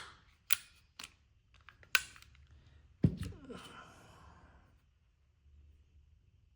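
Small hard objects being handled on a work surface: a string of sharp clicks about half a second to a second apart, then a heavier knock about three seconds in that rings briefly.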